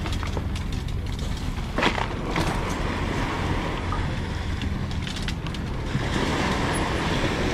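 Electric bike rolling over a bumpy dirt and sand track: steady tyre and frame noise, with a few sharp knocks as it jolts over bumps, the clearest about two seconds in.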